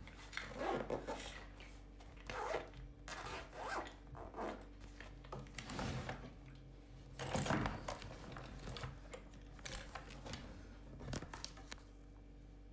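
Irregular rustling and scraping of things being handled close to a phone's microphone, in short bursts every second or two.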